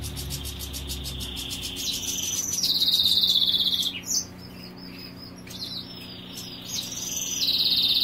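European goldfinches singing: two long, rapid trills held near one high pitch, the first about two and a half seconds in and the second near the end, with short chirps and twitters between.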